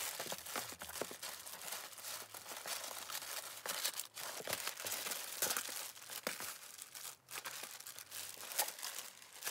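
Packaging in a delivery box rustling and crinkling in irregular handfuls as the packed items are rummaged through.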